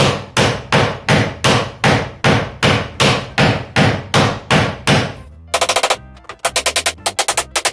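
Hammer blows driving a tight-fitted floorboard down onto the joists, even and steady at about two to three blows a second. About five and a half seconds in, the blows turn into quick clusters of sharper, ringing strikes, as if sped up.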